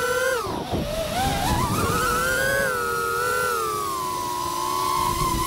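FPV quadcopter's brushless motors whining, the pitch swinging with the throttle: it drops sharply about half a second in, climbs back quickly, then settles into a steadier, slowly falling whine.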